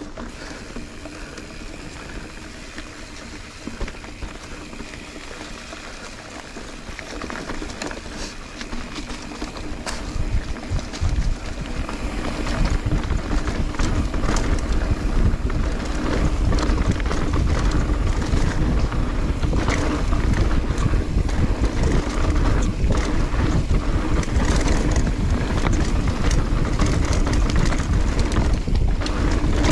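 Mountain bike riding down a dirt singletrack, heard from a handlebar-mounted GoPro: tyres rolling over dirt, leaves and roots, with rattling clicks from the bike and wind buffeting the microphone. It grows much louder about ten seconds in and stays loud.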